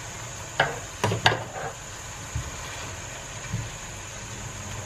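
Wooden spatula knocking against a stainless steel skillet as soaked rice noodles are worked into the sauce: a few sharp knocks in the first second and a half, then fainter ones spaced apart, over a steady faint sizzle from the pan.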